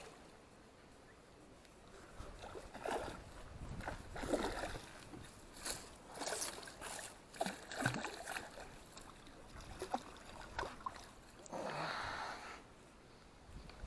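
Water splashing and sloshing in irregular bursts as a small hooked carp thrashes at the surface while being played in, with the longest splash near the end.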